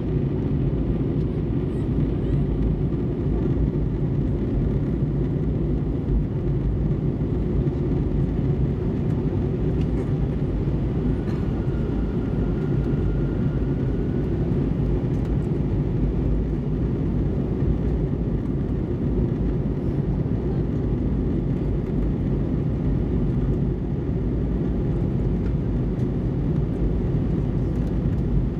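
Steady cabin noise of a jet airliner in flight, heard at a window seat: a constant low rumble of engines and rushing air that does not change.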